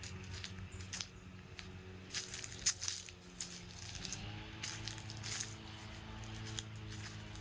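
Footsteps walking at roughly one to two steps a second, over a low steady drone that shifts up in pitch about four seconds in.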